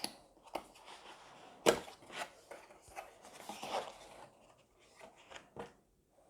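Doorbell packaging being handled and opened by hand: irregular rustling and scraping with sharp clicks and knocks, the loudest knock about a second and a half in.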